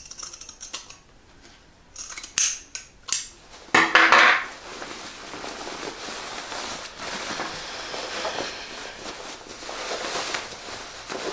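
Steel scissors snipping through fabric seam allowance in a few sharp clicks, then a metallic clatter about four seconds in as the scissors are set down on the table. After that, a continuous rustle of fabric as a sewn bag is pulled right side out through its pocket opening.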